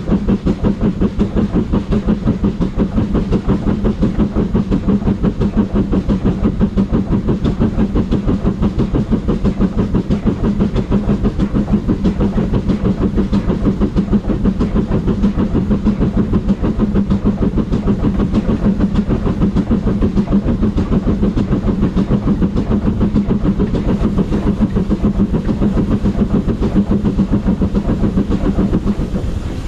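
GWR small Prairie 2-6-2 tank locomotive No. 5542 running along the line at speed: a rapid, even pulsing over a steady low hum.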